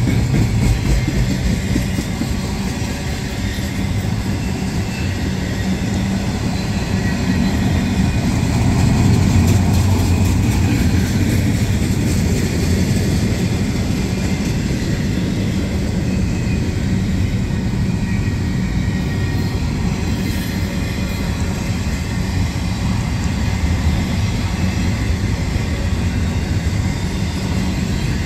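Double-stack intermodal well cars rolling past: steel wheels running on the rails in a steady, continuous noise with faint repeated clacks.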